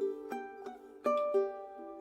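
Background music: plucked ukulele-style notes in a light, bouncy melody.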